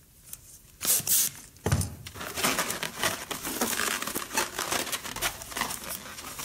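Small inflated latex balloons squeaking and crinkling as they are tied and twisted together into a duplet by hand. A brief rustle comes about a second in, and the dense rubbing and squeaking start just before two seconds.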